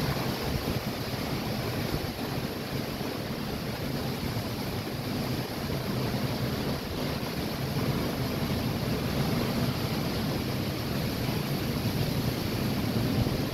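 Heavy storm surf breaking against a seawall, mixed with strong typhoon wind, heard as a steady, unbroken rush of noise.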